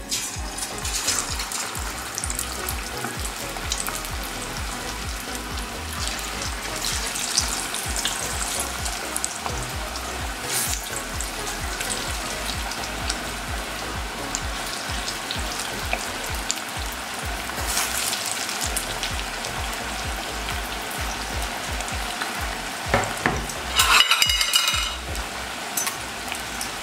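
Pakora batter of gram flour, potato and onion deep-frying in hot oil: a steady sizzling and bubbling that flares up each time more batter is dropped in. Near the end, a louder scrape and clatter of a slotted metal spoon in the pot.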